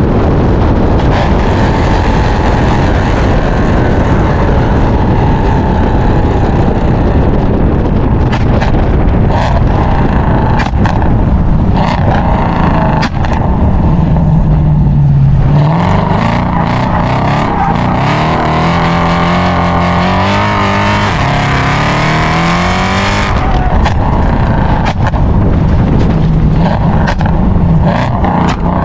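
Mercedes C63 AMG's 6.2-litre naturally aspirated M156 V8, catless with long-tube headers, heard loud at the quad tailpipes while driving. Its note sinks and then climbs in steps, with sharp pops and crackles from the exhaust.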